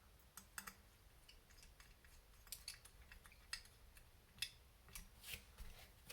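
Faint, irregular clicks and light metallic ticks of small kit parts and hand tools being handled on a workbench, a dozen or more in a few seconds.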